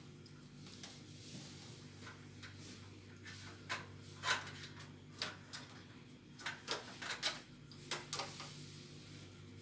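Handling a Cat 6 patch panel and its cable: a run of short clicks and rustles in the middle, the loudest two about four and eight seconds in, over a steady low hum.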